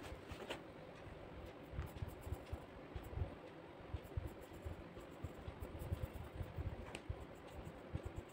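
Pencil scratching on sketchbook paper as outline strokes are drawn, with a couple of small clicks and soft low bumps throughout.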